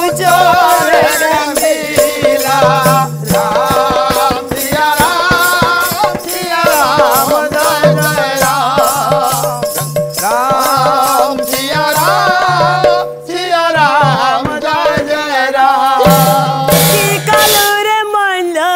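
A woman singing a devotional Odia Pala song, held over a steady drone and accompanied by fast, even percussion.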